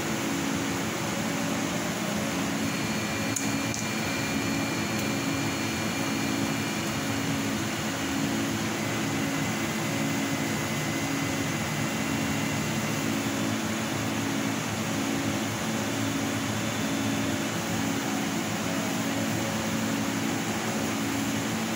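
A Bao Yuan Tong CNC laser cutting machine running: a steady fan-like whoosh with a low hum that pulses in an even rhythm, a little over once a second, as the laser head works across the sheet.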